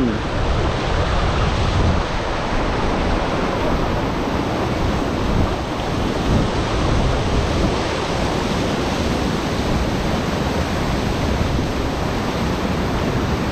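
Muddy floodwater rushing fast down a concrete inflow channel in flood: a steady, loud, churning wash of water.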